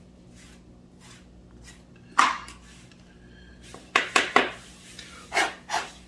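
A few sharp knocks and clacks of hard objects handled and set down on a workbench. The loudest comes about two seconds in, three follow quickly near the middle and two more near the end, over a steady low hum.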